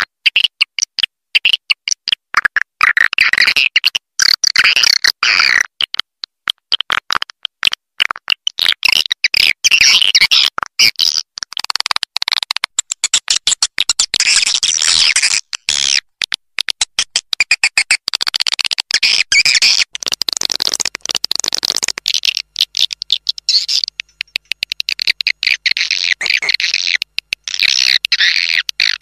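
Recorded swiftlet calls: a dense, choppy chorus of rapid chirps and twitters broken by many brief gaps. It is a swiftlet roosting call ('suara inap') of the kind played to lure swiftlets into a swiftlet house.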